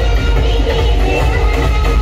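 Loud electronic dance music played through a large outdoor DJ speaker wall of King series cabinets, with the deep bass strongest.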